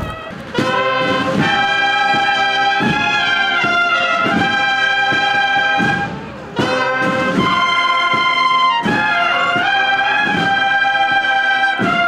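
A brass band of trumpets plays a slow processional march in held notes over a steady beat, with a short break a little past halfway.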